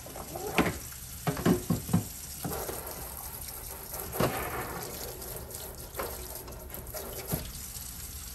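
Water from a sink sprayer hose and faucet splashing into a stainless steel sink, rinsing a plastic tray, as a steady hiss. A few sharp knocks in the first two seconds and another about four seconds in are the loudest sounds.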